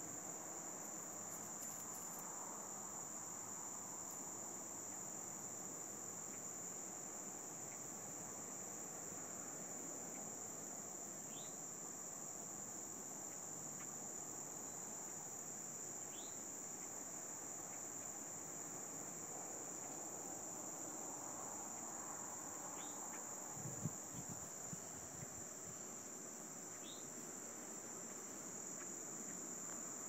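Insects trilling in one continuous, steady high-pitched drone. Four short rising bird chirps come through at intervals, and a brief bump from handling the phone is heard about four-fifths of the way in.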